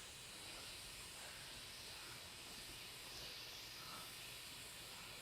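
Faint, steady hiss of compressed CO2 from a Power Tank flowing through a tire inflator hose into a trailer tire as it is filled.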